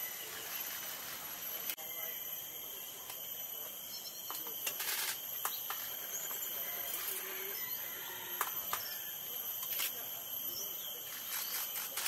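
Camera shutter clicks: a rapid burst about five seconds in, single clicks after it, and another burst near the end. Under them, faintly, the soft chattering call of a mangrove blue flycatcher.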